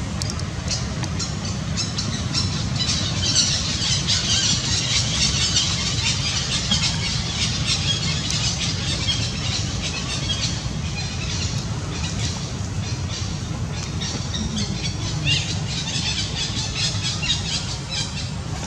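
Infant macaque crying with repeated short, high-pitched squeals, heaviest a few seconds in and again near the end, over a steady low rumble.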